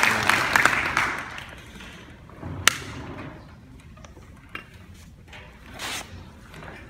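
Audience applause dying away over the first second or so, then a quiet room with a sharp click a little before the midpoint and a few smaller knocks and shuffles as the string players settle into their chairs and ready instruments and music stands.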